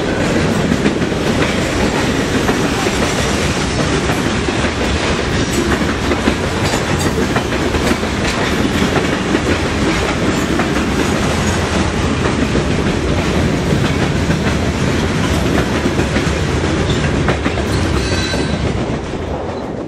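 Freight train cars (boxcars and covered hoppers) rolling past close by, their wheels clacking steadily over the rail joints. The sound drops off near the end as the last car goes by.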